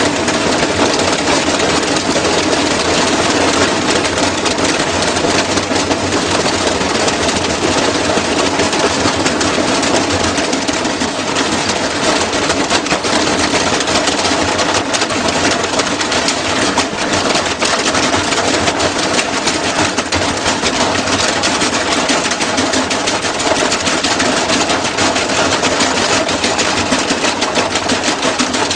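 Washing machine running with a loud, continuous fast rattling and knocking that keeps up without a break.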